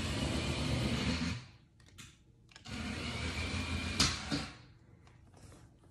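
Small electric motor and gearbox of a toy remote-control truck whirring as it drives, in two bursts of about a second and a half each, with a sharp click near the end of the second burst.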